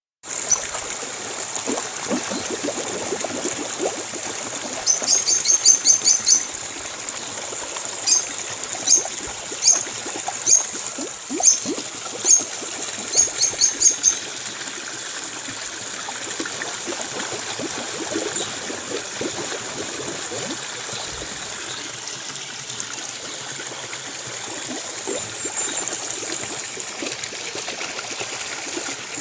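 Trickling stream in Atlantic Forest with a bird calling: runs of short, sharp high notes from about five to fourteen seconds in, a few more near the end, over a steady high-pitched hiss.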